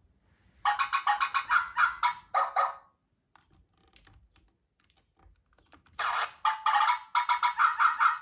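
Hasbro I-Dog robot toy making its electronic yapping sound effects from its built-in speaker: two bursts of rapid, stuttering squawks, each about two seconds long, the first about a second in and the second near the end.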